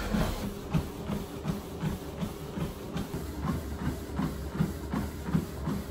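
Running footfalls landing on a treadmill belt in an even rhythm, a little under three steps a second, over the steady hum of the treadmill's motor.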